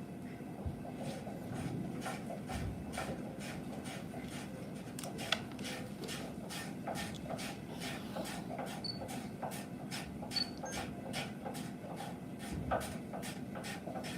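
Japanese hand plane (kanna) taking short, quick strokes across wood, about two or three a second, each a brief scrape of the blade.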